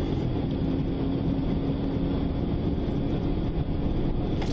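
Police car driving, a steady rumble of engine and road noise with a faint steady hum.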